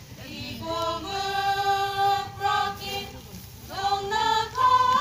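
A church choir singing in long held notes.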